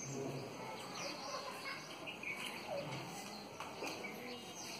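Outdoor garden ambience: birds chirping, with indistinct voices in the background.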